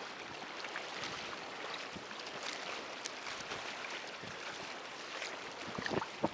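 Seawater splashing and sloshing in many small irregular splashes, with wind noise on the microphone.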